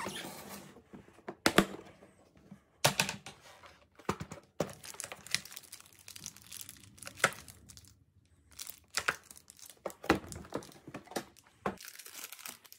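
Packaging being handled: crinkling and rustling, with irregular sharp clicks and knocks.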